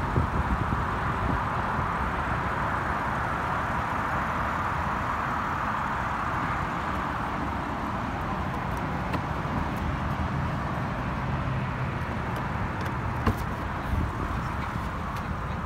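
Toyota Supra engine idling steadily. A few clicks and a knock near the end as the car's door is opened.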